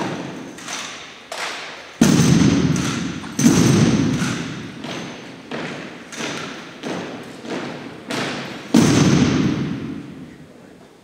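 A drill team's rifle drill: about a dozen sharp slaps and thuds of hands striking drill rifles, rifle butts hitting the hardwood floor and heels stomping, in uneven rhythm, echoing in a large gym. The three loudest strikes come about two seconds in, at three and a half seconds and near nine seconds, and the sounds stop shortly before the end.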